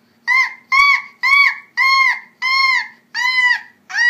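A toddler letting out a run of seven high-pitched, monkey-like shrieks, each rising and falling in pitch, about one every half second.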